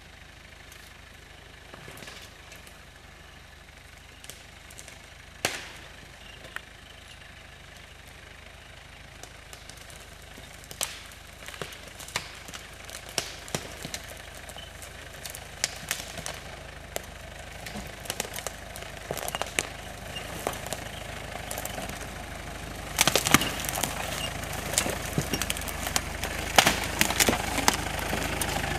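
Mitsubishi Pajero 4x4 crawling slowly through a forest gully, its engine running low and growing louder as it comes closer. Dead branches snap and crackle under its tyres, with one loud crack about five seconds in and denser cracking near the end.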